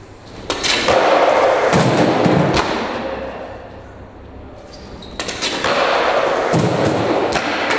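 Skateboard wheels rolling over a concrete floor in two runs, each a few seconds long, with several sharp clacks and thuds of the board.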